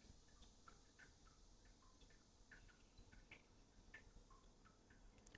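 Near silence with faint, irregular small ticks, a few a second: a crochet hook working single crochets in yarn.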